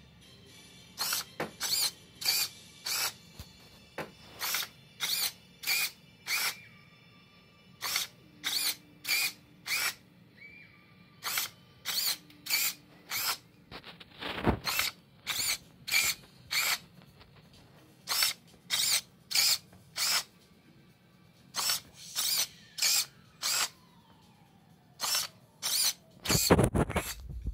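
Small hobby servos driving the robot's 3D-printed side doors: many short geared-motor whirs, each about a third of a second, coming in irregular runs roughly one or two a second. A louder, lower knock and rumble near the end.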